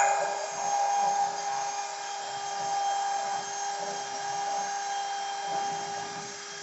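CNC router spindle running at a steady high-pitched whine over a rough, hissing machine noise, a little louder in the first second.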